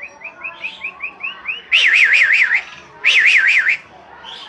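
Nias hill myna whistling: a quick run of short rising notes, then two loud warbling whistles that swing rapidly up and down in pitch.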